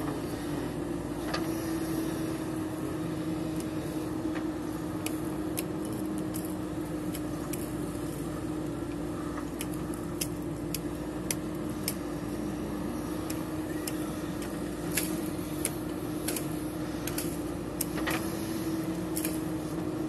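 JCB 3DX backhoe loader's diesel engine running steadily while the backhoe digs soil and dumps it into a truck, with scattered short clicks and knocks through the second half.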